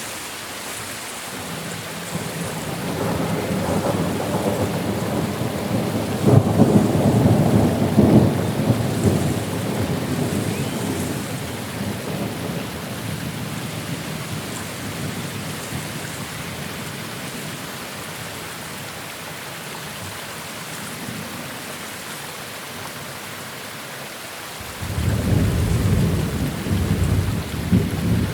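Steady rain with two rolls of thunder. The first builds a couple of seconds in, is loudest a quarter of the way through and slowly dies away. The second breaks in suddenly near the end.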